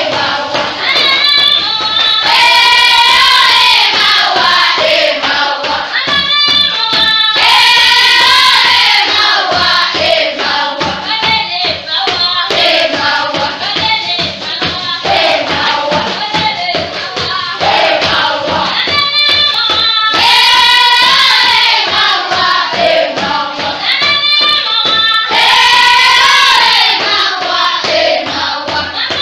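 A group of schoolchildren singing together loudly, repeating the same sung phrase several times.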